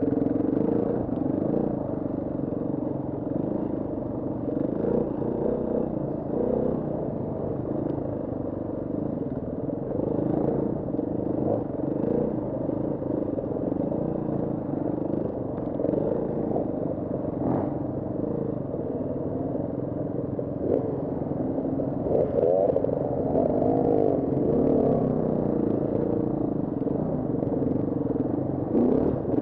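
KTM 350 Six Days enduro motorcycle's single-cylinder four-stroke engine running under load, its pitch rising and falling as the throttle opens and closes, muffled, with occasional knocks.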